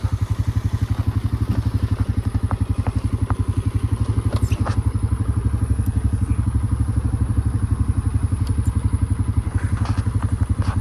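An engine idling steadily with a fast, even low pulse, with a few light clicks and knocks over it.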